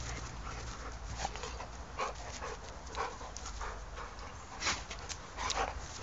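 Two dogs play-fighting, making short vocal sounds in quick bursts about once a second, the loudest near the end.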